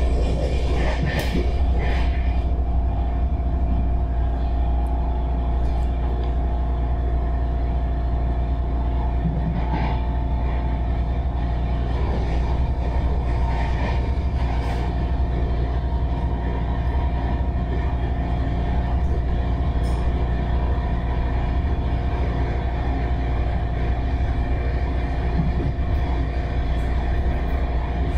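MARTA rapid-transit railcar running at speed, heard from inside the car: a steady low rumble with a constant hum-like tone over it.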